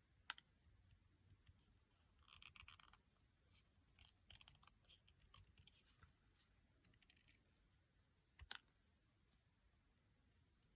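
Scissors quietly snipping through card during fussy cutting. A quick run of crisp snips comes about two seconds in, then scattered small snips, and one sharper click near the end.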